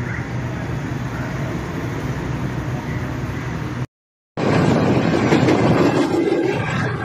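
Steady running noise of the Pak Business Express, a Pakistan Railways passenger train. It cuts out for about half a second about four seconds in, then comes back louder and rougher as the wheel-and-rail and wind noise of the moving coach.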